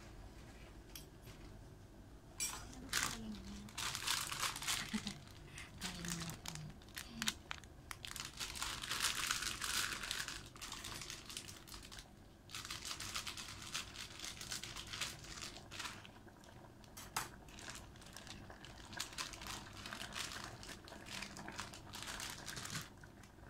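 Plastic food packaging crinkling as it is handled and cut open, in bursts with short pauses.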